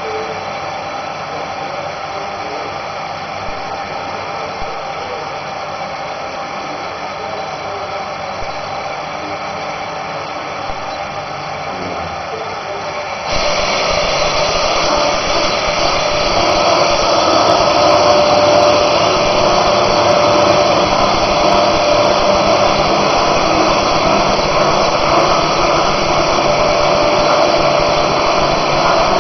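Twin-saw sawmill machinery running with a steady mechanical noise, which becomes suddenly louder about thirteen seconds in, with a steady hum added, and stays that way.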